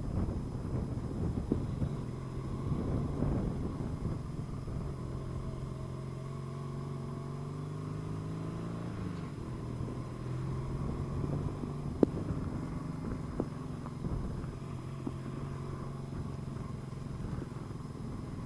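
Motorcycle engine running at low speed, steady, with a short rise in pitch about eight seconds in that drops back. A sharp click about twelve seconds in.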